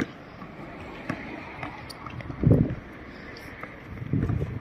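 A basketball bouncing sharply once on an outdoor hard court, then low muffled rumbles of wind on the microphone about two and a half seconds in and again near the end.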